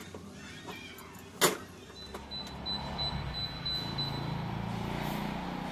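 A sharp click, then from about two seconds in a Sharp J-Tech inverter split-type air conditioner running: a steady low hum with a thin, steady high whine.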